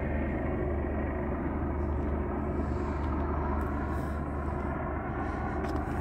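Steady low engine rumble with a constant hum underneath, unchanging throughout.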